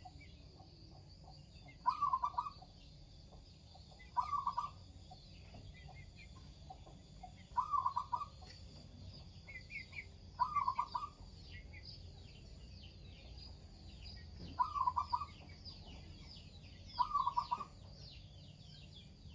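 Zebra dove cooing: six short phrases of rapid, rolling coo notes, a few seconds apart, from a bird in full song. Faint high chirping from other small birds sits in the background.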